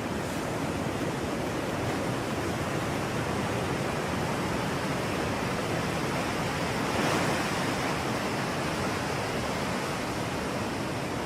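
Ocean waves washing in, a steady rush of surf with one wave swelling a little louder about seven seconds in.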